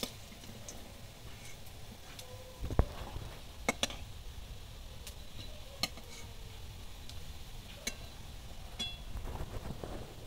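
Metal skimmer and spatula clinking and scraping against an aluminium wok as fried fritters are scooped out of the oil and drained, over a faint oil sizzle. A handful of sharp clinks, the loudest about three seconds in.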